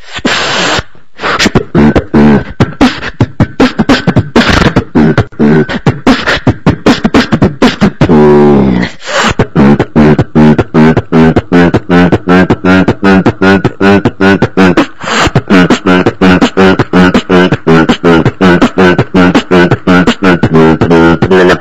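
Beatboxing: one performer's voice making a fast, even run of kick and snare hits, with a falling vocal sweep about eight seconds in.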